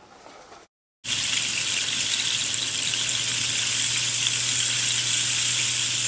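Rain stick being tipped, its beads pouring through the tube in a steady rain-like hiss that starts abruptly about a second in.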